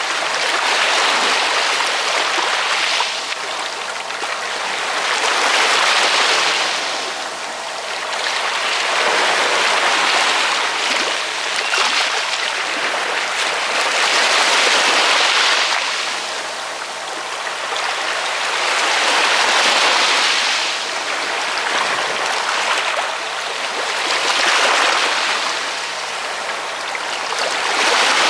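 Ocean waves washing in one after another, a hissing rush that swells and falls back about every four to five seconds.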